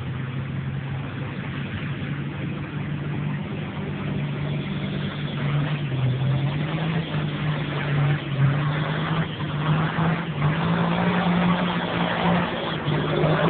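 A farm tractor's engine running hard under full load on a pulling run, getting steadily louder as the tractor comes closer. Its pitch steps up slightly about halfway through.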